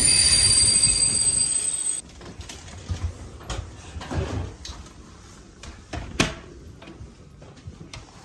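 Passenger carriages rolling past along the platform, the wheels giving a steady rumble with a thin high squeal. About two seconds in, this cuts to a quiet sleeper-car interior with scattered knocks and clicks at a compartment door.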